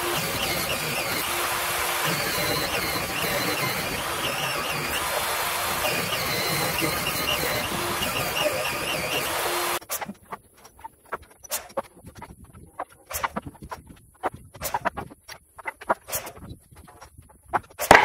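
Portable table saw running steadily while ripping a wooden board. About ten seconds in it gives way to sparse knocks and clacks of lumber being handled.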